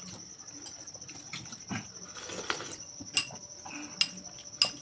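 Spoons clinking against bowls and plates while eating, with three sharp clinks in the second half. A steady, high-pitched pulsing trill carries on underneath.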